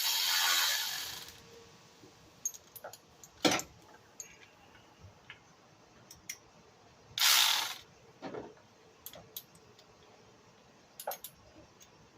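Ratchet wrench working a 10mm bolt on a VVT solenoid. There is a burst of fast clicking that ends about a second in and another about seven seconds in, with scattered small metal clicks and a knock between them.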